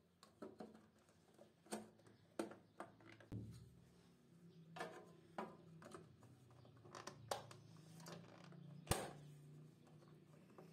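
Plastic covers being pressed and snapped onto slotted cable trunking: a series of quiet clicks and knocks, the sharpest one near the end.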